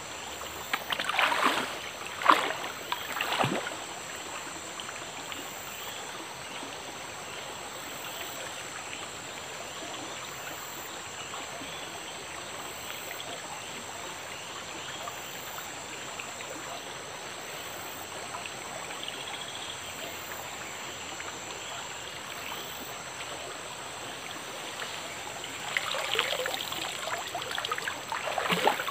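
Steady sound of a flowing stream, with water splashing a few times near the start and again near the end.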